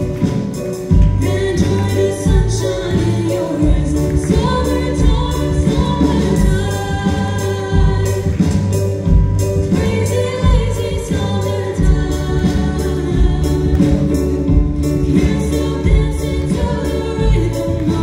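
Live amplified song: two girls singing together into microphones, backed by flute and acoustic guitar over a steady low beat.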